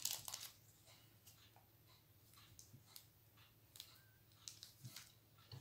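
Faint, scattered small clicks and crinkles from hands handling a small plastic bag of diamond-painting drills, slightly louder in the first half-second.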